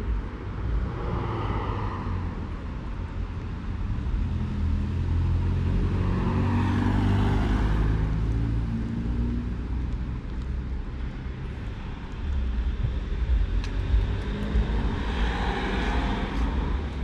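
Street traffic: motor vehicles passing with a steady engine-and-tyre rumble that swells and fades as each one goes by. The loudest passes come around the middle and again near the end.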